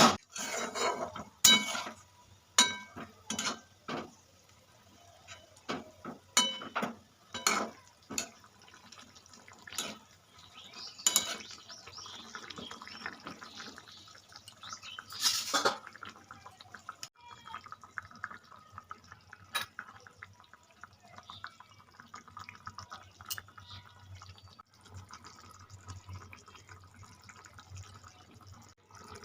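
Cooking sounds from a pot: a string of sharp metal knocks and clinks over the first half, then softer dripping, trickling liquid.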